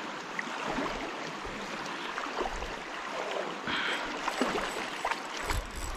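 Shallow river water flowing and rippling steadily, with a brief burst of splashing about four seconds in.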